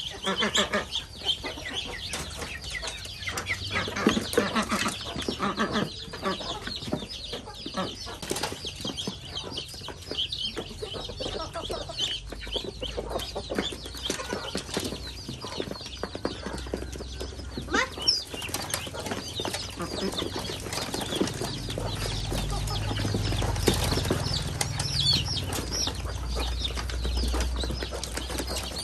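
A mixed flock of ducklings, ducks and chickens crowding in to feed on scattered grain and bran: many fast clicks and scratches of bills pecking and dabbling in the dry feed, with peeping, clucking and wings flapping. A low rumble runs for a few seconds about three-quarters of the way through.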